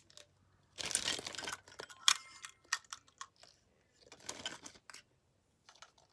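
Clear plastic packaging crinkling in two short bursts, with scattered sharp clicks and taps of small plastic GoPro accessory parts being handled.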